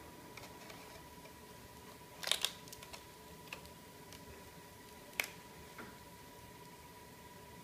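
Stiff card pages of a pop-up book being unfolded by hand: a quick cluster of papery clicks and snaps about two seconds in, a few lighter clicks, and one sharp click about five seconds in. A faint steady high-pitched hum runs underneath.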